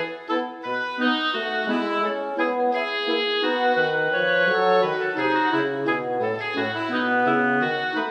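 Instrumental background music: held, sustained notes in several voices, with a melody on wind-like instruments over a slower moving bass line.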